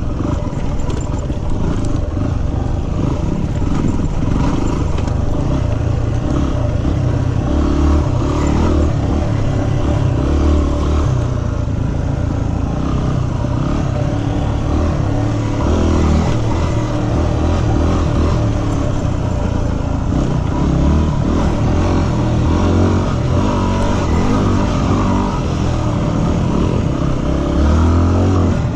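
Yamaha WR250R dual-sport motorcycle's 250 cc single-cylinder four-stroke engine running under way, its pitch rising and falling as the throttle is opened and closed.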